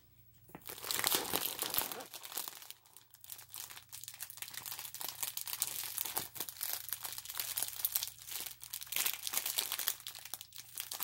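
Plastic bags of diamond-painting drills and the plastic-covered canvas crinkling as a rolled canvas is unrolled by hand; a dense crackle that starts about a second in.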